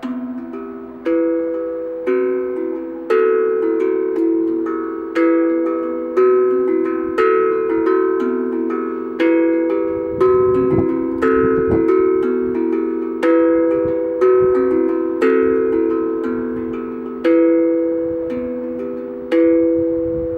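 URSA Minor B glucophone (steel tongue drum) played by hand: a slow melody of single struck notes about once a second, each ringing on and overlapping into the next.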